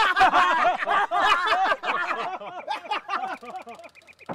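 Several men laughing loudly together in rapid bursts of 'ha-ha', the laughter trailing off over the last second or so. A faint, fast ticking comes in near the end.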